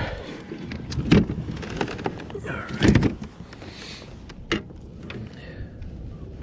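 A few scattered knocks and thumps of handling on a fishing boat, the loudest about three seconds in, with a brief voice sound alongside it and a low steady rumble underneath.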